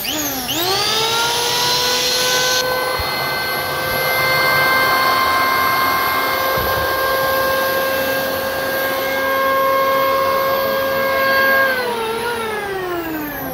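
Electric hand planer (Gaocheng GC-H82P) running on test after its armature replacement: the motor whine rises quickly to full speed, holds steady, then falls away as it winds down after being switched off about 12 seconds in.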